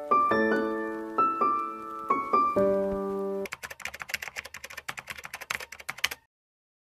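Piano music, single struck notes and chords, for about three and a half seconds; then a quick run of keyboard typing clicks, a typing sound effect for text appearing on screen, which cuts off suddenly about a second before the end.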